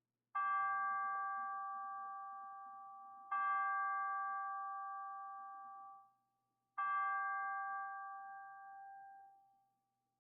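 A chime struck three times, a few seconds apart. Each stroke rings at the same pitch and dies away slowly, the last one fading out fully.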